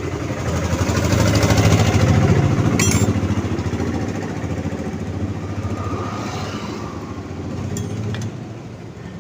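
An engine running with a fast, even pulse, swelling to its loudest about two seconds in and then slowly fading, with a short metallic click about three seconds in.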